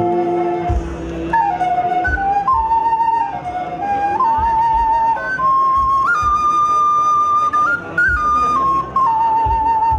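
A flute playing a slow melody of held notes, climbing to its highest long note about six seconds in, over a low backing beat.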